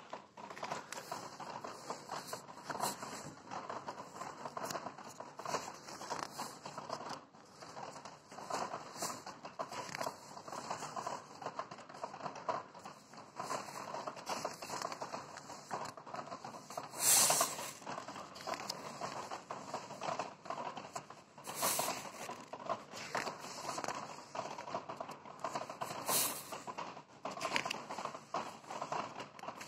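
Paper sticker album handled and its pages turned by hand: steady paper rustling with a few sharper page flips, the loudest about seventeen seconds in.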